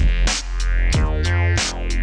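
Electronic background music with a drum-machine beat: punchy drum hits that drop in pitch, bright cymbal-like hits and a deep sustained bass.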